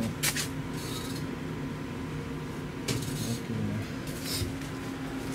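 Steady low machinery hum with a couple of sharp metallic knocks and a few short hissing bursts, typical of a ship's machinery space.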